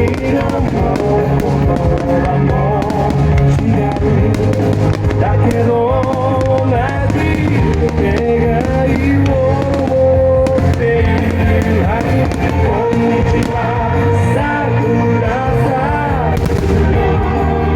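A song with a singing voice and band accompaniment plays loudly, with firework bursts and crackles going off again and again through it.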